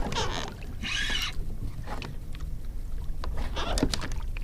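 Wind rumbling on the microphone over water sounds around a kayak, with scattered small knocks and a short hissing burst about a second in.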